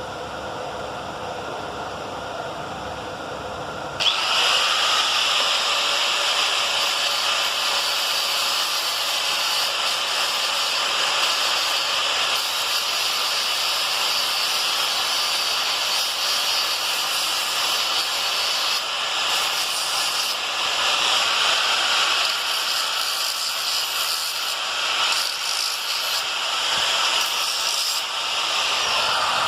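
A small power tool running, then from about four seconds in grinding against a steel knife blade with a loud, steady hiss, smoothing the old blade.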